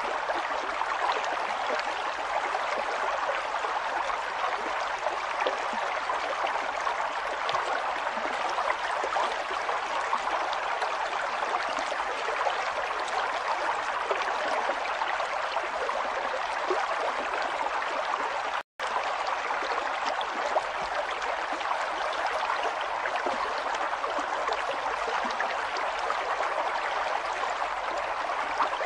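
River water flowing steadily over rocks, an even rushing and gurgling. The sound cuts out for a split second about two-thirds of the way through, then resumes unchanged.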